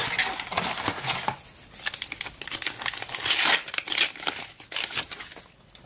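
Team Coach trading card pack wrapper being torn open and crumpled in the hands. It makes a dense run of crinkling and crackling that is loudest a little past halfway and dies down near the end.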